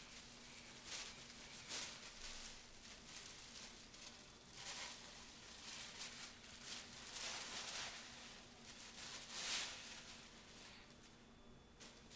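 Faint rustling of a large sheet of paper as a small child handles and drags it, coming in irregular spurts.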